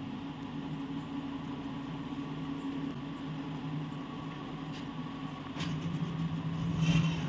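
Steady low motor hum from a running household appliance, with a few faint handling clicks in the second half and a louder one near the end.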